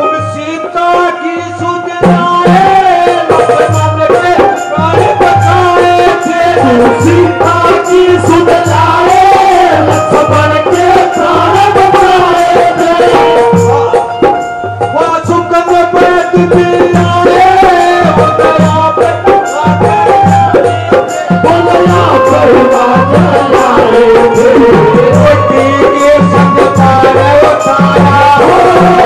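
Instrumental interlude of Haryanvi folk music: a wavering melody over a steady, regular drum beat with rattling percussion.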